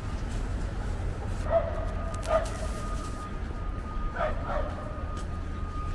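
A dog barking in short yips, about four times, over a steady low rumble of street traffic.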